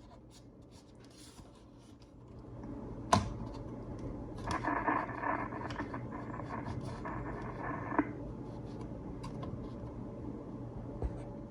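Old 1960s germanium transistor radio faintly coming back to life: hiss and hum from its speaker with scattered crackles and clicks, a sharp click about three seconds in and a louder stretch of rushing noise from about four and a half to eight seconds in. It is the radio's first weak sign of life after working its on-off and band switches.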